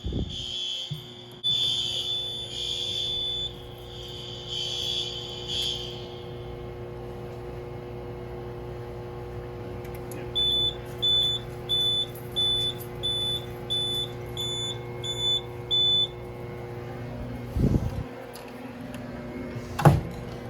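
A school fire alarm system sounding: a high alarm tone pulses for about the first six seconds, then stops. A few seconds later comes a run of about nine short high beeps, roughly one and a half a second. A steady low hum runs underneath, and two thumps come near the end.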